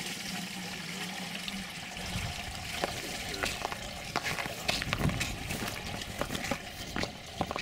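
Water splashing and trickling in a plastic bucket as panfish are handled in it, with scattered small knocks and clicks. A low steady hum for the first second and a half, then a low rumble from about two seconds in.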